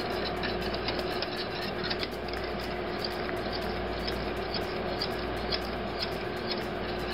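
Wire whisk stirring thick custard in a stainless steel saucepan: a continuous run of light, rapid clicks and scraping as the wires hit the pan. A steady hum sits underneath.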